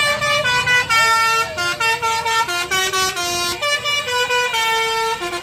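Bus telolet horn of the Basuri type playing a fast melody: several horn tones sounding together, jumping from note to note every fraction of a second, with a short wavering slide in pitch about two seconds in.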